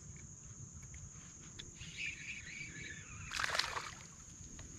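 Quiet outdoor water ambience with a single short splash of water about three and a half seconds in.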